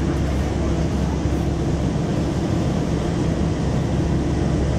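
Steady drone of a passenger hovercraft's engines, lift fans and propellers under way, heard from inside the cabin, with an even rushing hiss over it.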